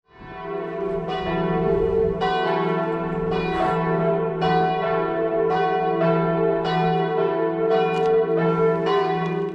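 Church bells pealing, a fresh strike about every second over the hum of the bells still ringing. The sound fades in at the start and stops abruptly at the end.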